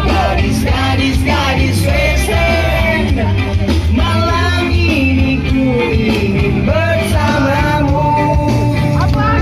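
Loud music: a song with singing over a steady bass line.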